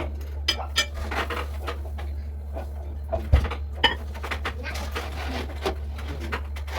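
Kitchen clatter: scattered knocks and clinks of pots and dishes being handled, with one heavier thump about three and a half seconds in, over a steady low hum.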